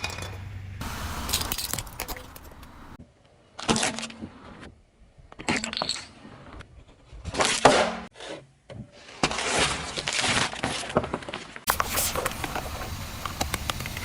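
Objects cracking and crunching under a car's tyres, in a series of separate short crushes with abrupt cuts between them; the loudest crunch comes a little past halfway.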